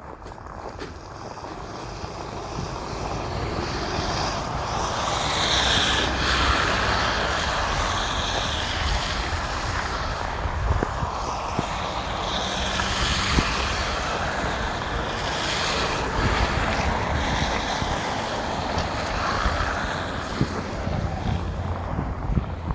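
Road traffic passing: the hiss of car tyres swells and fades several times as vehicles go by, over a low rumble.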